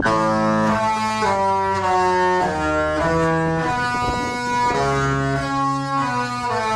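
The Disney Fantasy cruise ship's horns playing a Disney tune. Several deep, sustained horn notes sound together as chords, stepping to new notes about every half second to a second, and start suddenly.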